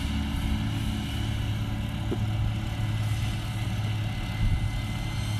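Deutz-Fahr Agrotron tractor engine running steadily with a low, even hum while it pulls a McHale Fusion 2 baler along the row.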